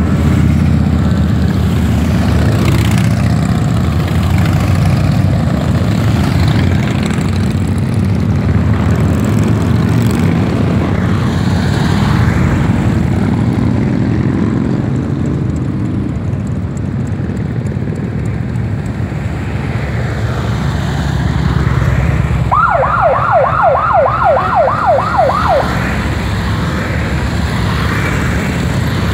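A column of big cruiser and touring motorcycles riding past, their engines making a steady low rumble that eases midway and builds again as more bikes come up close. About 22 seconds in, a siren-like yelp of quick falling sweeps repeats three or four times a second for about three seconds.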